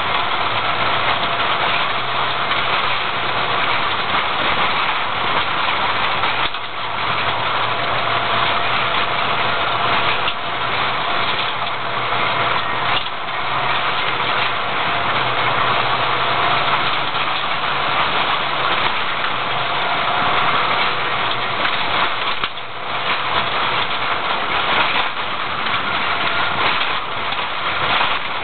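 Car engine running and tyre noise on an unpaved track, heard from inside the cabin, with a steady low engine hum. The sound dips briefly twice, about six seconds in and again near the end.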